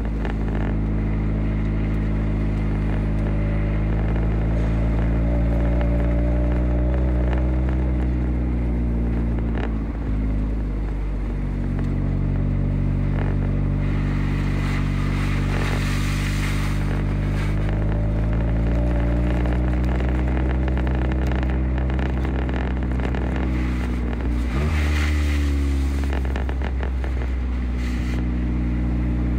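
A car's engine running as the car drives along a snow-covered road, heard from inside the cabin. Its pitch climbs slowly and drops sharply twice, about ten seconds in and near the end, with tyres crunching and scraping over packed snow.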